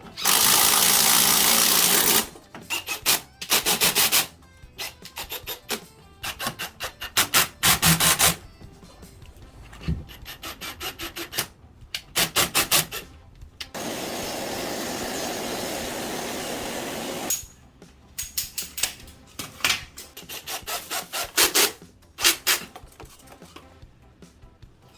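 Quick back-and-forth rasping strokes in bursts, like hand sawing, alternating with two loud stretches of steady hissing noise, one about 2 s long at the start and one about 3 s long around the middle.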